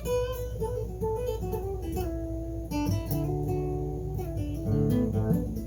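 Blues guitar playing an instrumental lick of single notes, with string bends near the end.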